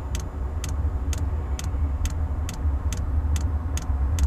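Vevor diesel heater's fuel dosing pump ticking about twice a second, the sign that it is pumping diesel and the heater is burning and putting out heat. A steady low rumble runs underneath.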